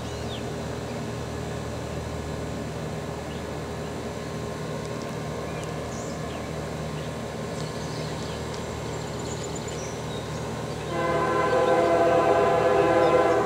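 Canadian Pacific GE diesel freight locomotive approaching with a low steady engine drone. About eleven seconds in, its Nathan K-series air horn sounds a loud chord and holds it to the end. Birds chirp faintly.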